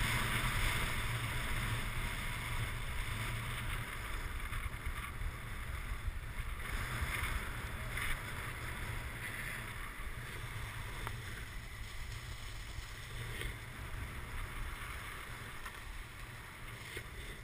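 Wind rushing over a helmet-mounted action camera's microphone with the hiss of edges sliding over packed snow on a downhill run, getting gradually quieter as the rider slows.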